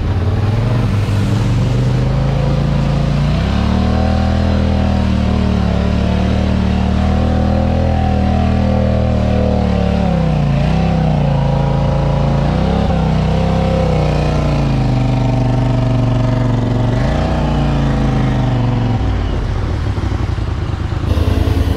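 Off-road vehicle engine running under steady throttle at speed, its note dipping and rising again several times as the throttle eases and reopens. Near the end the note falls away into rougher noise.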